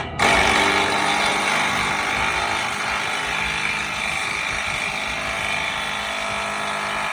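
A handheld power tool runs steadily for about seven seconds, a loud hissing whir with several steady tones, and cuts off suddenly near the end.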